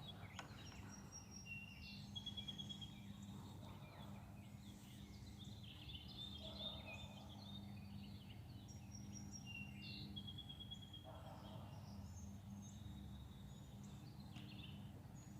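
Several songbirds singing and chirping, with short rapid trills and thin high whistles coming and going, over a faint steady low hum.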